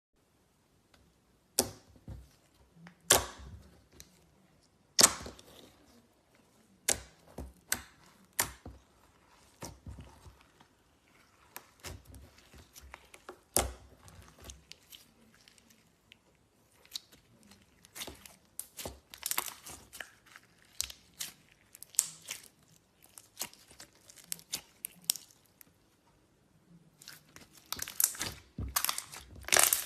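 Slime being squeezed and stretched by hand: irregular sticky pops and clicks, scattered at first, then denser crackling runs near the end.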